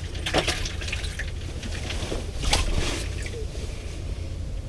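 Scattered small clicks and knocks with light wet sloshing, over a steady low rumble.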